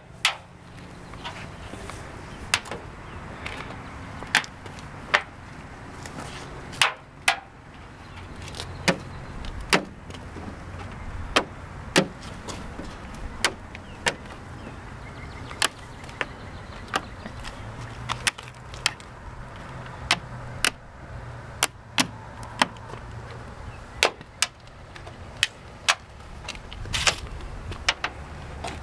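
Small magnets clicking one after another onto the steel body panels of a 1940 Ford coupe, sharp clicks at irregular gaps of a second or two. Each one that holds shows solid steel under the paint, not rust or body filler.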